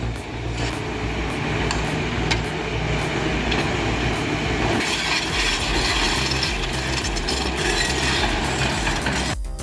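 Heavy tracked construction machine working: a steady diesel engine under loud metallic clanking and rattling from its moving parts. The sound cuts off abruptly near the end.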